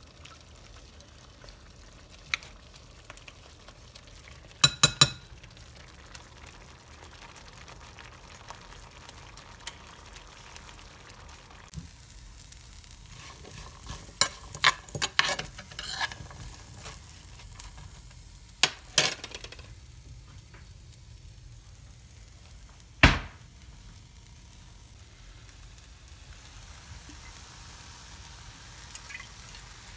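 Chopped vegetables frying in a pan with a faint, steady sizzle, stirred by a utensil that knocks sharply against the pan now and then: three quick knocks about five seconds in, a cluster around the middle, and one loud knock about two-thirds of the way through.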